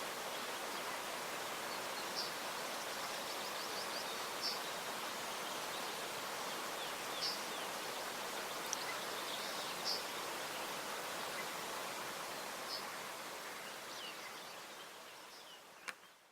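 Steady rushing of the flooded Glomma river, with small birds chirping now and then above it. The rushing fades out near the end, with a single click just before it stops.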